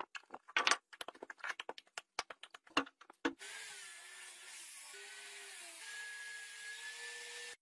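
Hand-tool work: a quick run of sharp clicks and taps, then a steady hiss with a faint wavering whine that cuts off abruptly.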